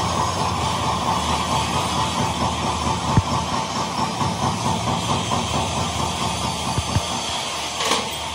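Factory machinery running steadily with a constant motor whine. There is a sharp metallic knock about three seconds in, two lighter knocks about seven seconds in, and a short hiss near the end.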